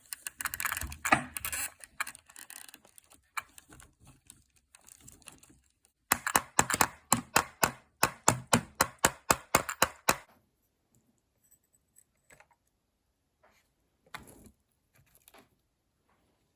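Small plastic and metal parts of an RC buggy's front axle being handled and fitted, with scattered clicks and rattling, then a quick run of sharp clicks at about four a second for some four seconds in the middle, and a few faint taps afterwards.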